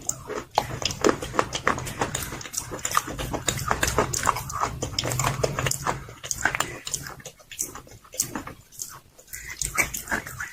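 Close-miked crunching and chewing of slate pencils: many sharp, irregular crunches in quick succession, with wet mouth chewing between bites.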